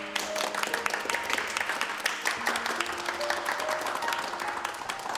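A group of people applauding, with dense, irregular clapping throughout, over soft background music with held notes.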